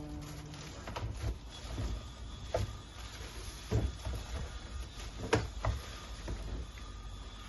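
Irregular knocks, clicks and light rustling of plastic parts and packaging being handled and unpacked, with two sharper knocks a little past the middle.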